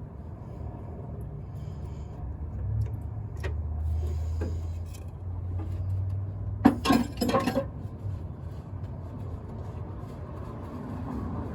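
Metal parts or hand tools clinking and rattling in a short cluster of sharp knocks about seven seconds in, over a steady low rumble.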